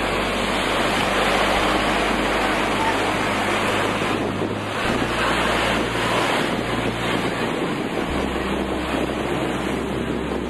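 Steady rushing noise of wind buffeting the microphone, mixed with ocean surf, with a low rumble underneath.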